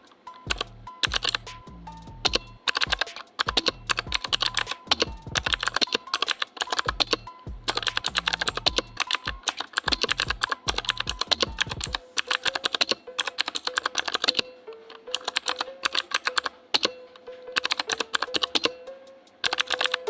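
Typing on a Gamen Titan Elite mechanical keyboard: quick runs of key clicks with short pauses between them.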